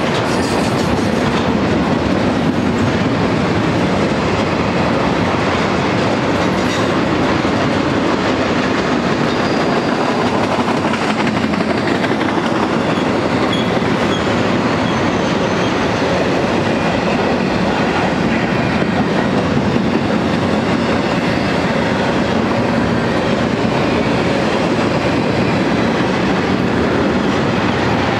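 A BNSF double-stack intermodal freight train's loaded well cars rolling steadily past: a continuous rumble of steel wheels on the rails.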